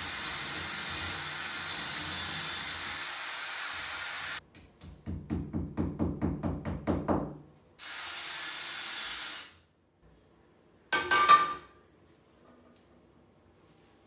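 Cordless drill running steadily into the brick wall for about five seconds, then pulsed on and off about four times a second, then running steadily again for under two seconds. A short metallic clatter follows about eleven seconds in.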